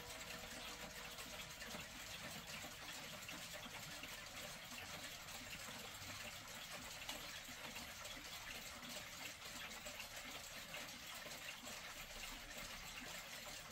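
Faint steady hiss, like running water, with no clear ticking heard through it. A clock chime's ringing tone dies away within the first second.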